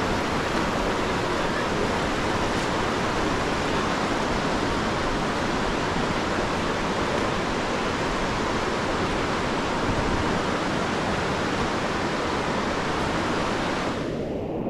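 River rapids, a steady loud rush of white water. Near the end the sound suddenly turns muffled, losing its hiss.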